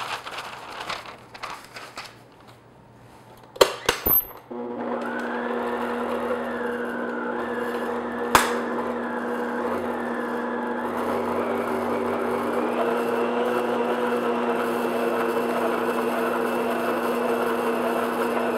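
A few light knocks, then about four seconds in an electric stand mixer switches on and runs with a steady hum. Its beater is mixing the last of the flour into a thick pound-cake batter in a glass bowl. A single sharp tick comes partway through.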